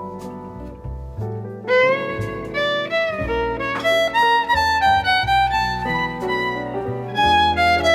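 Background music: a melody of bowed and plucked string notes over a bass line, picking up about a second and a half in.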